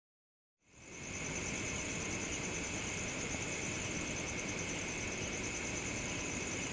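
Night insects chirring steadily in a high, fast-pulsing trill, fading in about half a second in after a moment of silence.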